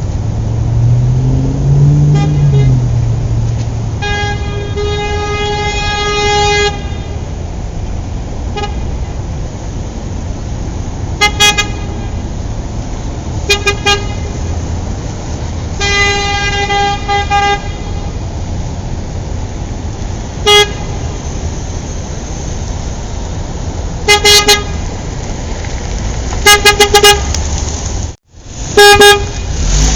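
Road traffic with car horns honking repeatedly over it: a few long blasts and many short ones, some in quick runs of three or four. The sound cuts out for a moment near the end.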